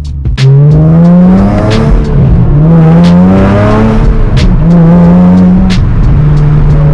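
Nissan 370Z's V6, with an aftermarket intake and exhaust, accelerating hard through the gears, heard from inside the cabin. The engine note climbs three times with a drop between each as it shifts up, then holds steady near the end.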